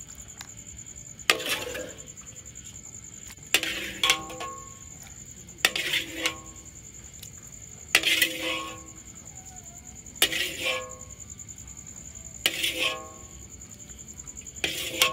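Metal spatula scooping eel sambal out of a wok into a bowl, clinking against the pan about every two seconds, often twice in quick succession, each clink ringing briefly. A steady high insect drone runs underneath.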